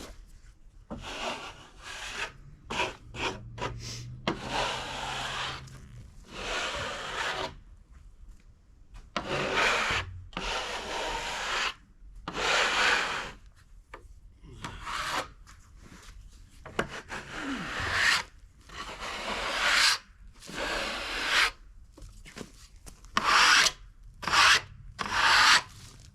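A brush or hand rubbing over freshly sawn ambrosia maple boards to clear off sawdust, in about twenty irregular strokes of half a second to a second and a half each.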